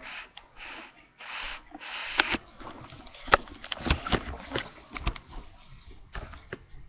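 Handling noise from a phone camera carried by hand across a wooden floor: a few short hissing rubs in the first two seconds, then a string of irregular knocks and taps.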